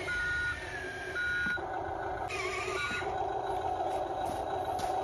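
Electronic reversing-style beeps from a remote-control toy construction vehicle's sound module: two beeps in the first second and a half and a short one near three seconds, over a steady electric hum.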